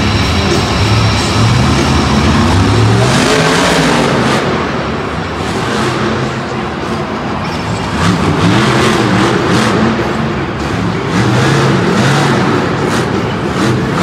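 Monster truck's supercharged V8 revving up and down again and again as the truck drives, the pitch rising and falling every second or two, over loud music.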